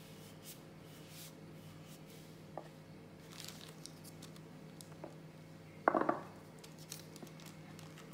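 Soft handling of pastry butter on a wooden board: a wooden rolling pin brushing over the sheet-wrapped slab, a soft rustle of the sheet as the slab is lifted, and one short knock about six seconds in.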